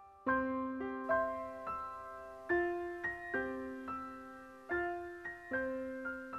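Background piano music: a gentle melody of plucked-sounding notes, each starting sharply and fading, a new note about every half second.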